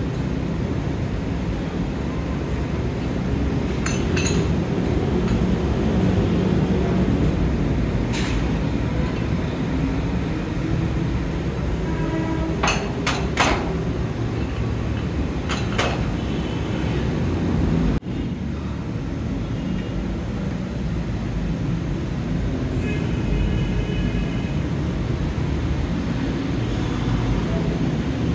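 Steady low rumble of gym background noise, with a few sharp clicks and clanks and a sudden change in the noise about two-thirds through.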